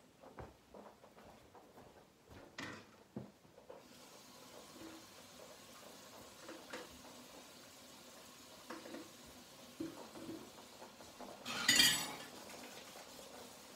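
A hard plastic treat-dispensing ball rattling and clattering with the treats inside as a dog noses and rolls it across a carpeted floor. Scattered light knocks and clicks, with one louder burst of noise near the end.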